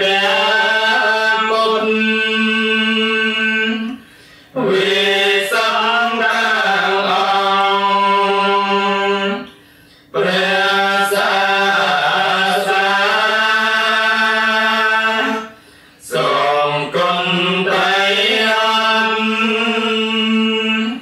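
Khmer Buddhist monks chanting the Sarabhanya, a slow melodic style of Pali-Khmer recitation, in four long drawn-out phrases with short pauses for breath between them.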